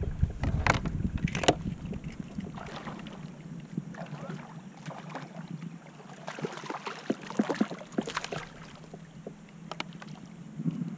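Water lapping and splashing against a kayak's hull, with scattered light clicks and knocks from the fishing rod and reel being handled. Wind rumbles on the microphone for the first second or so.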